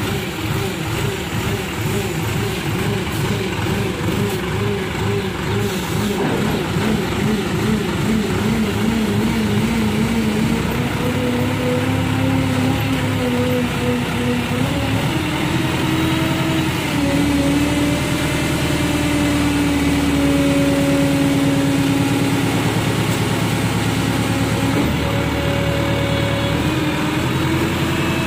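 Mobile hydra crane's diesel engine running under load while it lifts. Its pitch wavers at first, then steps up from about ten seconds in and holds higher.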